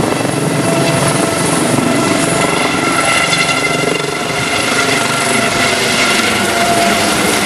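Air ambulance helicopter flying overhead just after take-off: steady rotor chop with a whine from the turbine engines.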